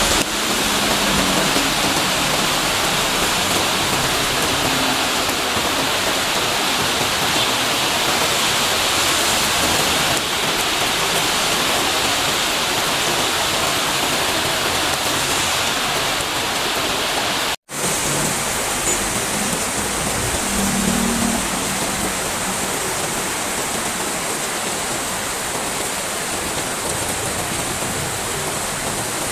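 Heavy rain pouring down in a steady, dense hiss. It breaks off for an instant about two-thirds of the way through.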